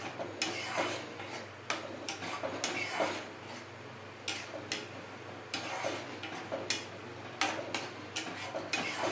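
Spoon stirring thin besan curry (pithla) in a kadhai, scraping and knocking against the pan in irregular strokes.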